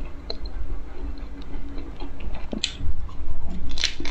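Close-miked eating sounds: chewing with small wet mouth clicks, and a couple of louder bites in the second half.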